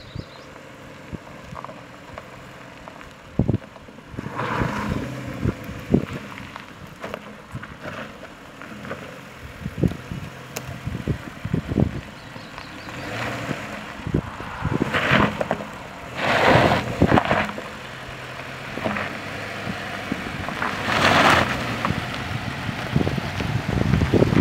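2024 Subaru Crosstrek's flat-four engine running low and steady as the car crawls over a rutted, rocky dirt trail. Its tyres crunch on gravel and knock over stones throughout, louder in a few stretches.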